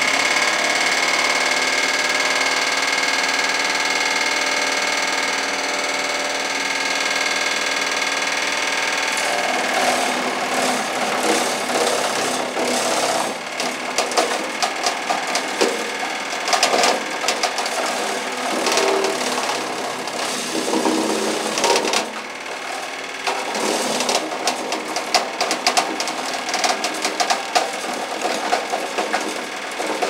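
Danuser PTO wood chipper driven by a 1952 Ferguson TO30 tractor, running steadily at speed with a whine from its impeller. About nine seconds in, branches start going through: irregular cracking and clattering as the wood is chipped and thrown out, with louder bursts on and off. The impeller is fitted with rubber paddles to stop clogging.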